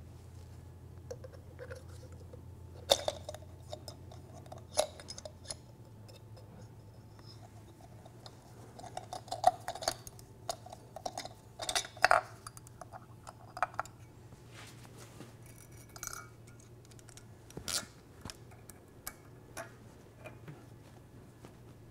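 Scattered small metallic clicks and clinks of a new filter, its retaining spring and a wire pick being handled inside a Mercedes W126 300SD's power steering reservoir, coming in irregular clusters. A faint steady low hum runs underneath.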